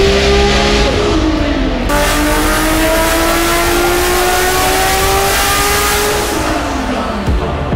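Toyota MK4 Supra's built 2JZ-GTE inline-six with a single Precision 8685 turbo under full throttle on a hub dyno. Revs climb and then fall away about a second in. A second pull climbs steadily for about four seconds, then the revs drop off near the end.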